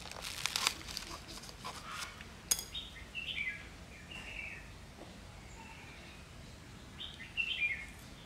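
Rustling and scraping in the first second as water spinach cuttings are pushed through the holes of a plastic basket into soil, then a sharp click about two and a half seconds in. Small birds chirp in short, falling calls about three seconds in and again near the end.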